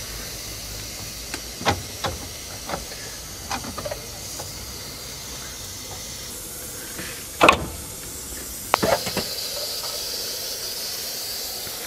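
Scattered metal clunks and knocks as a car's front driveshaft is worked free of the wheel hub, the loudest about seven and a half seconds in, over a steady hiss.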